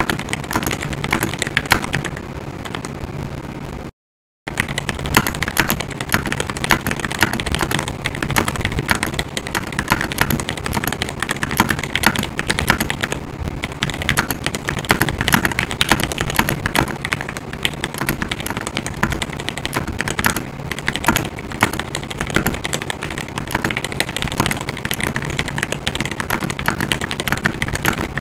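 Fast typing on a GMMK Pro mechanical keyboard fitted with Everglide Aqua King linear switches: a rapid, uneven stream of keystroke clacks. The sound cuts out completely for a moment about four seconds in, then the typing carries on.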